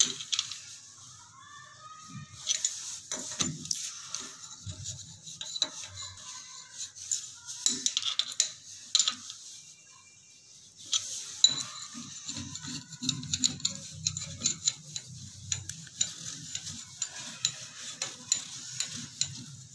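Light metallic clinks and taps from a chrome wall shower mixer being handled and fitted against its wall inlet connectors, with a short lull about halfway through.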